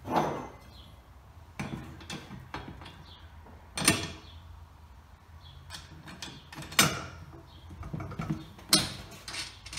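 Steel wheelbarrow legs and arms knocking and clanking as they are handled and pressed over the bolts: about five sharp knocks spread through, with lighter clicks between.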